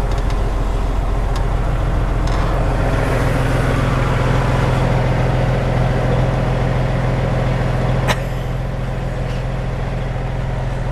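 Truck on the move: a steady engine drone with road noise, broken by one sharp knock about eight seconds in, after which it runs on slightly quieter.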